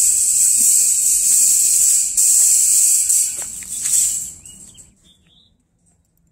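Cicadas buzzing loudly in a dense, high chorus that dies away about four and a half seconds in, with a few faint bird chirps as it fades.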